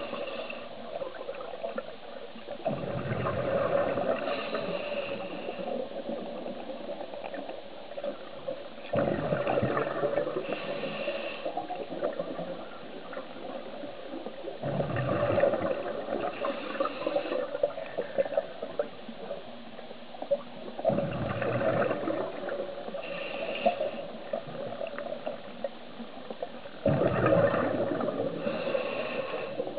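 Scuba diver's regulator breathing, heard underwater: a gurgling rush of exhaust bubbles on each exhale, coming about every six seconds, five times.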